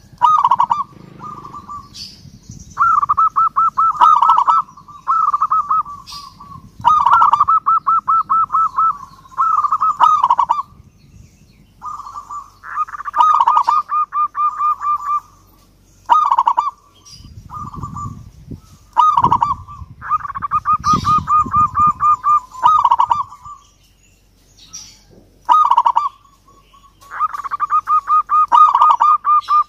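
Zebra dove (perkutut) singing: a dozen or so phrases, each a quick run of staccato cooing notes lasting one to two seconds, with short pauses between them.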